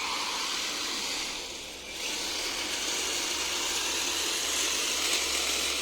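Chainsaw running and cutting through guava wood; the sound dips briefly about a second and a half in, then picks back up and holds steady.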